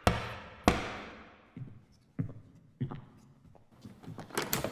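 Gavel knocks on wood: two loud knocks, each echoing, then a run of fainter knocks about every half second and a quicker cluster near the end.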